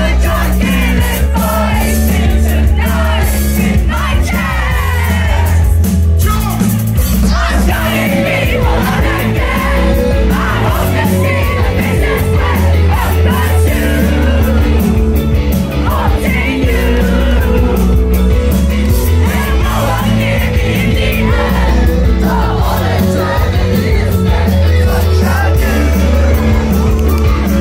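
Live rock band playing a song, with a lead singer over drums, electric guitars and bass, and the crowd shouting and singing along.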